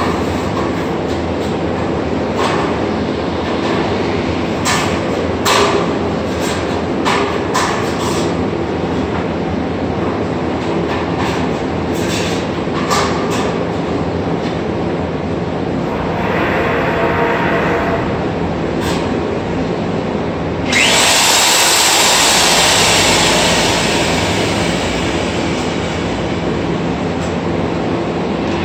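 Milwaukee core drill running steadily as it cuts concrete, a constant mechanical drone with scattered knocks in the first half. About twenty seconds in, a louder hissing rush starts abruptly and fades away over the next several seconds.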